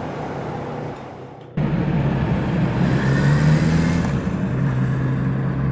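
Kawasaki Z900RS's 948 cc inline-four engine and exhaust running under way. About a second and a half in it becomes suddenly much louder, with a steady engine note that rises a little in the middle and then settles again.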